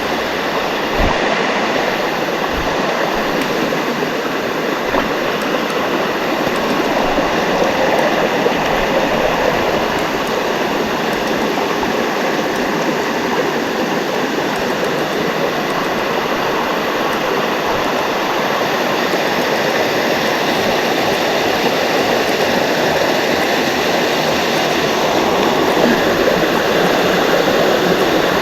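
Waterfall water rushing, a loud, steady noise with no letup.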